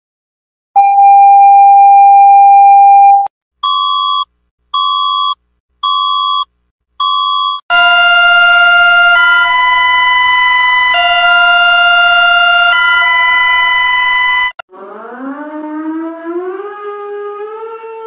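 A sequence of electronic emergency-alert tones. First comes a loud steady tone for about two and a half seconds, then five short beeps, then a two-tone alarm that switches between two chords about every second and a half. Near the end a quieter wavering tone climbs in steps, like a siren winding up.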